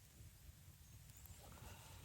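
Near silence: a faint low rumble with a few faint scattered clicks.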